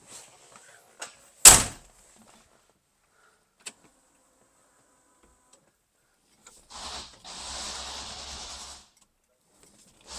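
Turn signal canceling test on a car's steering column: one sharp, loud click of the signal lever about one and a half seconds in, with a few fainter ticks. Later comes a rushing scrape of about two seconds as the steering wheel is turned to cancel the signal.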